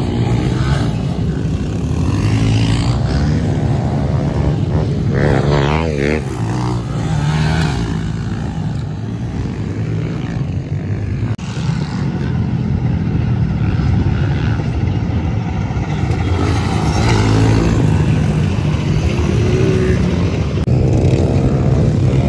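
Small pit bike engines running and revving, the pitch rising and falling several times as the bikes are ridden and jumped.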